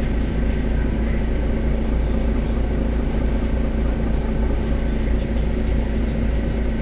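Mercedes-Benz Citaro city bus's rear-mounted engine idling steadily at a standstill: an even low rumble with a steady hum.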